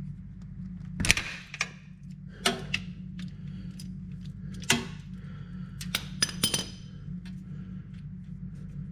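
Metal tools clinking and knocking, about eight sharp clinks spread over several seconds, while the oil drain plug of a Can-Am four-wheeler's engine is worked loose with a wrench. A steady low hum runs underneath.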